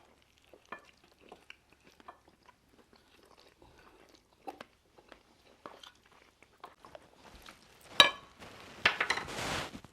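Eating at a table: quiet chewing and small scattered clinks of cutlery on plates, with one sharp knock about eight seconds in and a short burst of scraping and rustling near the end.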